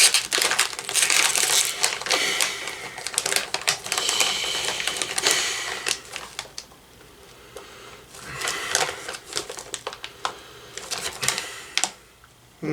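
A crinkly plastic snack bag of cheese puffs being torn open and handled, crackling steadily for about six seconds, then in two shorter bouts later on.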